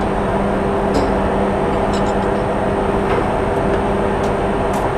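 Steady machinery hum with a low drone and rough noise underneath, on a ship's deck; a few faint metallic clicks come through now and then.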